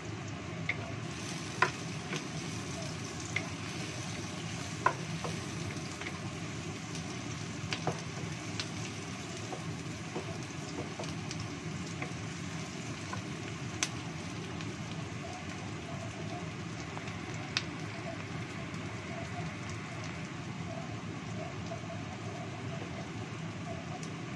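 Sliced shallots, garlic and ginger sizzling steadily in hot oil in a wok, stirred with a wooden spatula that now and then clicks sharply against the pan.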